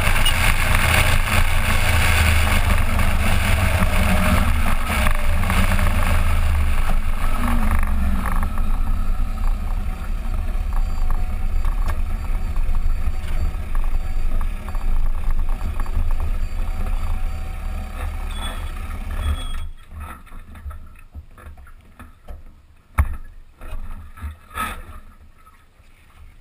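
Suzuki GSX1400 inline-four motorcycle engine running under heavy wind rush on a helmet or bike-mounted camera, then easing to a quieter steady running. The sound cuts off abruptly about twenty seconds in, leaving a few knocks near the end.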